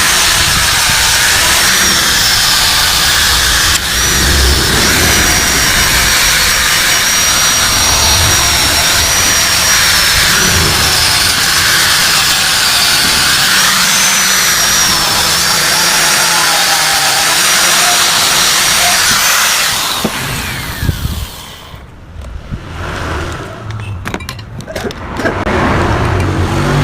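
Power tool, an angle grinder, running steadily on the metal of a motorcycle exhaust muffler with a high wavering whine. About 20 seconds in it is switched off and winds down, followed by a few scattered metal knocks.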